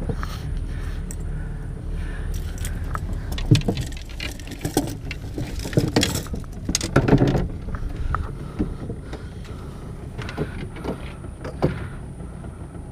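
Scattered knocks, clicks and clatter from handling gear and the caught barramundi on a small boat's wooden floor, over a steady low rumble.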